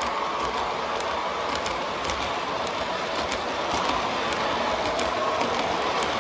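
O gauge model Amtrak passenger cars rolling past on the track: a steady rumble of metal wheels with light, scattered clicks as the trucks cross rail joints.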